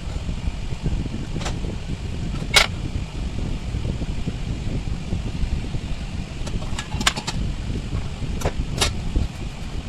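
A steady low rumble, like wind or handling noise on the microphone, with a few sharp clicks: one about a third of the way in and a small cluster near the end.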